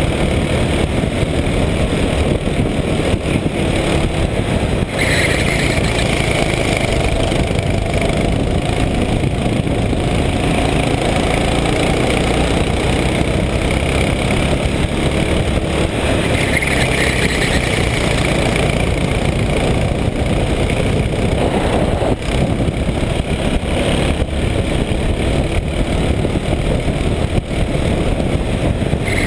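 Racing go-kart engine running hard at speed, heard from on board the kart, its note rising and falling with the throttle through the corners.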